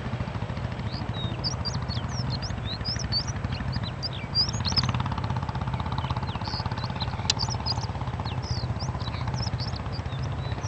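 Many small birds chirping in short, quick notes over a steady low engine hum, with a single sharp click about seven seconds in.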